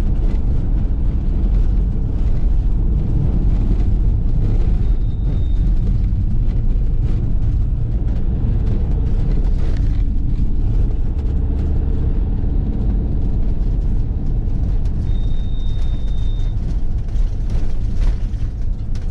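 Steady engine and road noise heard from inside a motorhome's cab while it drives along a country road. Two short, faint high beeps come in, one about five seconds in and a longer one around fifteen seconds in.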